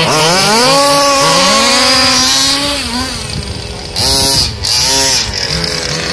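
Small two-stroke petrol engines of 1/5-scale RC buggies revving and easing off as they race. The pitch climbs over the first second, holds, and drops about three seconds in, then there is a short sharp burst of revs about four seconds in.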